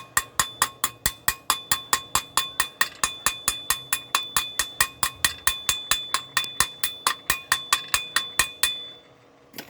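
Rapid, even hammer blows on metal, about five a second, each ringing with a clear metallic tone. They stop near the end, after which one last strike follows.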